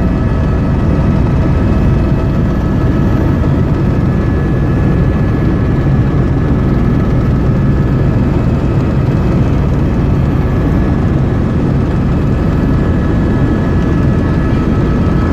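Helicopter cabin noise heard from inside: the engine and rotor run at a steady, loud drone with a few constant whining tones above it.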